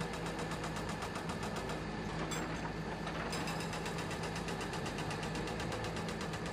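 Excavator-mounted Furukawa (FRD) hydraulic breaker hammering its chisel into the ground: a rapid, even hammering over the steady running of the excavator's engine.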